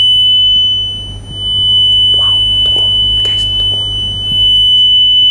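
Steady 3000 Hz pure tone from two Android phone speakers about a metre apart, heard through a microphone moving between them. The tone fades sharply about a second in and swells back, then dips slightly again near four seconds: the microphone is passing through quiet spots of destructive interference between the two sources.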